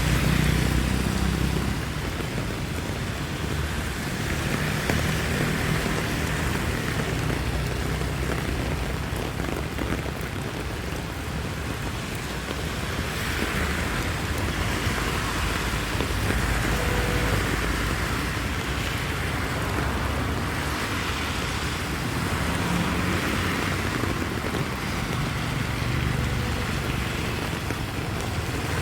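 Steady rain falling on a street, with traffic: vehicles passing now and then in swells of tyre hiss over a low engine rumble.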